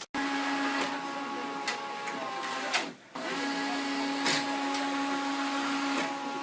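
Printer running: a steady mechanical whir with a fixed hum, breaking off briefly about halfway through and starting again, with a short click in the second stretch.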